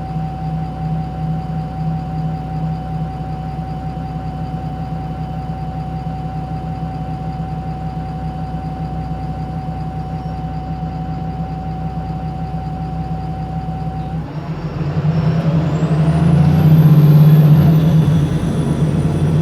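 Wright Pulsar single-deck bus's diesel engine idling steadily with a constant whine, heard from on board. About fourteen seconds in, the bus pulls away: the engine grows louder and rises in pitch, and a high whine climbs and then falls back.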